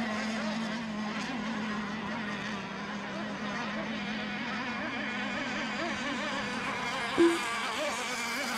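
Several small RC racing boat engines buzzing at high revs, their pitch wavering as the boats run the course. A short beep comes about seven seconds in.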